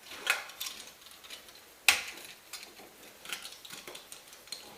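Light clicks and taps of electrical wires and a GFCI outlet being handled, with one sharper click about two seconds in.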